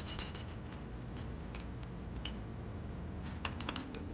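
Scattered light clicks and clinks of tableware at a meal, bunched at the start and again near the end, over a low room hum.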